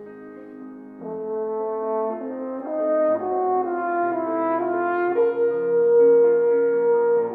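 French horn playing a slow, sustained melody that grows louder about a second in. It plays over a piano accompaniment that a Steinway Spirio|r Model B player grand reproduces from a recording.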